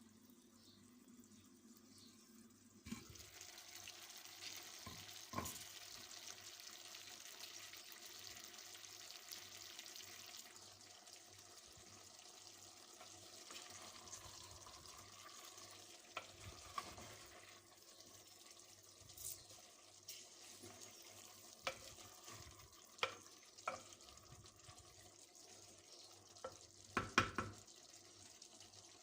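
Food sizzling in a pan while being stirred, with a utensil clinking and knocking against the pan now and then. The sizzle starts suddenly a few seconds in and eases off about halfway; the knocks are loudest near the end.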